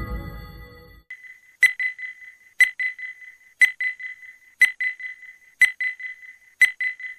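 The tail of intro music fades out over the first second. Then a ticking-clock sound effect starts: a sharp tick once a second with lighter ticks between, counting down the seconds.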